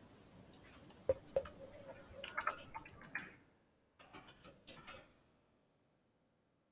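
Faint computer keyboard keystrokes and mouse clicks: a handful of scattered taps, some in quick little runs.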